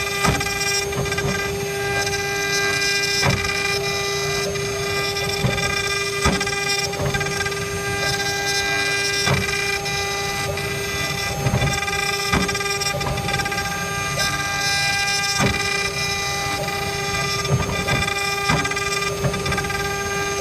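CNC router spindle milling a wooden cylinder turning on the rotary axis: a steady, high-pitched machine whine made of several held tones, over the noise of the cutter chewing through wood, with sharp clicks every second or few.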